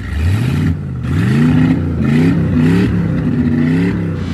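An engine revving hard, its pitch climbing and dropping back several times before levelling out near the end.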